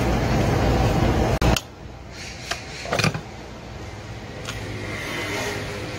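Steady low noise that cuts off suddenly about a second and a half in, then hands handling a brush cutter's engine parts: a couple of short clicks and knocks and some rubbing as the housing is worked loose to reach the ignition coil.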